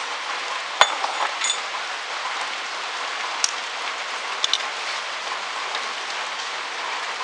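A few sharp metallic clinks of a screwdriver working at the end of a steel motorcycle silencer, over a steady background hiss.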